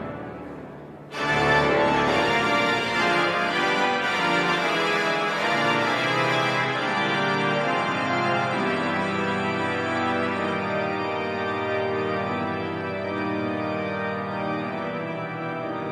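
The great pipe organ of Notre-Dame de Paris playing improvised full chords in the cathedral's long reverberation: a chord dies away at the start, then about a second in a loud, full chord enters and dense sustained chords go on, the brightest upper notes dropping out about halfway through.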